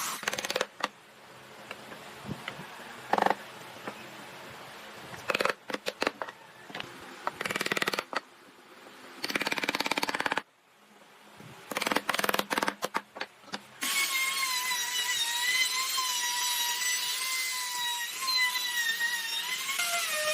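Woodworking in a workshop: scattered knocks and short bursts of tool noise, then a small power tool's motor starts a steady high-pitched whine with a slightly wavering pitch about two-thirds of the way in.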